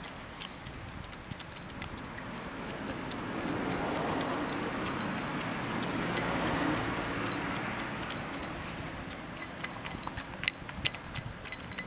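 Chickens pecking at rice, a scatter of small sharp clicks and taps that grow louder near the end, over a broad rushing noise that swells and fades over several seconds.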